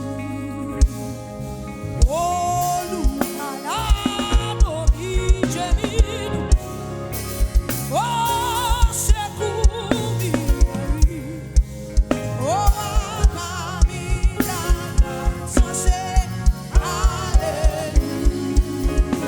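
Live gospel band music: a lead voice holds long notes with wide vibrato, sliding up into each one, over keyboard chords and a busy kick-drum beat.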